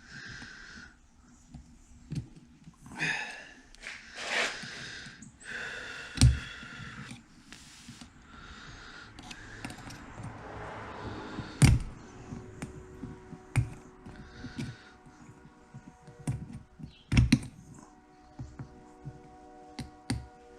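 Small metal turbocharger parts and hand tools being handled on a workbench: irregular light clicking and clinking with a few sharper knocks, as bearings and clips are fitted during a turbo rebuild. A faint steady hum of several tones comes in about halfway through.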